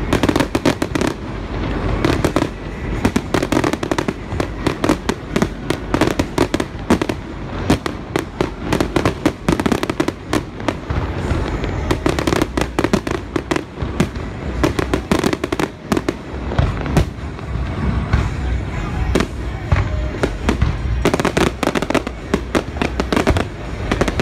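Aerial fireworks display: a dense run of shell bursts and crackling reports, many bangs a second, without a pause.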